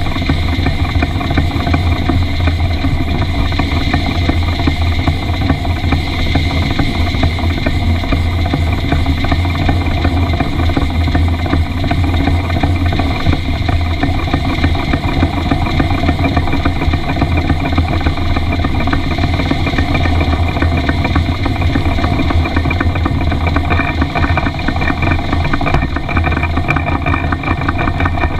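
Miniature Isle of Man-style live-steam locomotive running along the track, picked up by a camera mounted on its front: a loud, steady rumble with rapid, even beats from the exhaust and running gear.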